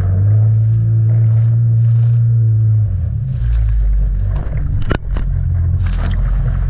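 Jetski engine running: a steady hum for about three seconds that then falls to a lower, rougher note, with short bursts of splashing or wind noise about five and six seconds in.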